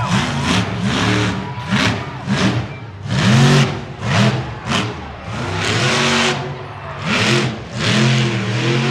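Monster truck engine revving hard in repeated throttle blasts, each rising and falling in pitch, about one every half second to a second, as the truck climbs and drives over a car pile.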